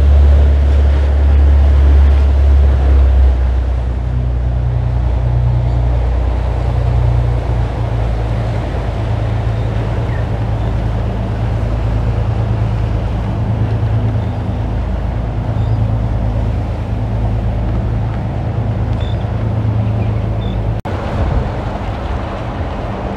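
Surf breaking and washing over the rocks of an inlet shoreline, over a steady low drone of boat engines. The sound drops out briefly near the end.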